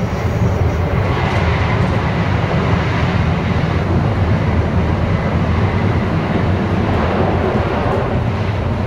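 High-speed bullet train running at speed: a steady low rumble and rushing noise, with a faint thin whine held above it.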